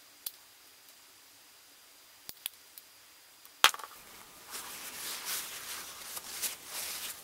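A few small clicks and one sharp click a little past halfway as a silicone-filled drinking straw is handled and taken off a caulk gun's nozzle. Then a paper towel rustles and crinkles as the straw is wiped.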